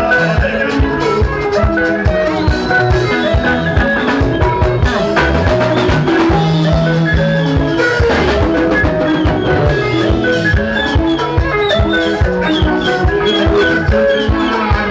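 Live Zimbabwean rumba band playing: bright, quick picked electric-guitar lines interlocking over electric bass and a steady, driving drum-kit beat.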